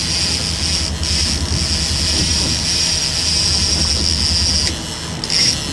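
Boat engine running steadily at trolling speed, a low rumble, with a steady high-pitched whine above it that breaks off briefly about a second in and again near the end.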